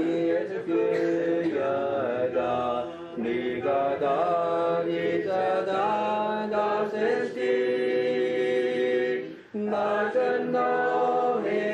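Chanted vocal music: several voices sing long held notes together, sliding from one pitch to the next, with a short break about nine and a half seconds in.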